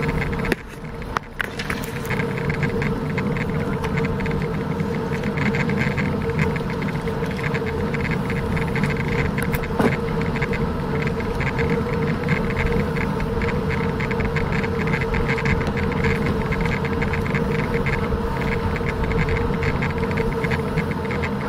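Riding noise from a bicycle rolling along pavement: wind rushing over the bike-mounted camera's microphone, tyre rumble and a light, constant rattling, over a steady hum. The noise dips briefly about a second in.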